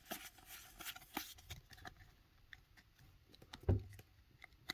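Pokémon trading cards being handled and flipped through: soft rustling and light clicks, with a short, louder soft thump near the end.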